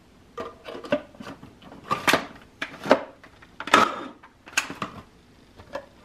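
Food processor pulsed in short bursts, its blade chopping and rattling frozen banana chunks, about six bursts with pauses between.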